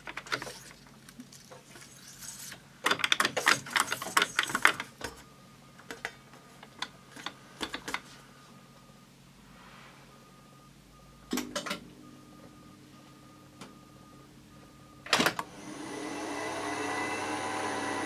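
Studer A80 reel-to-reel tape recorder being readied: clicks and rattles of a tape reel being fitted and handled, then a switch click near the middle followed by a steady low hum. Later a sharp clack comes and the transport starts running, its sound rising steadily toward the end.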